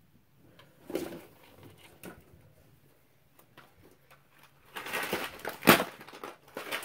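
Small plastic doll-kitchen pieces being handled and set down on a cardboard box. There are a few light clicks, then a short stretch of rattling and rustling, and a sharp clack near the end.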